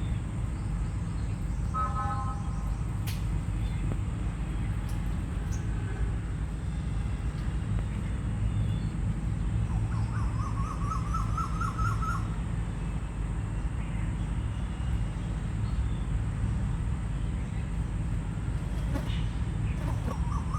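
Steady low rumble with occasional bird calls over it: a short call about two seconds in, and a quick run of rising chirps around ten seconds in.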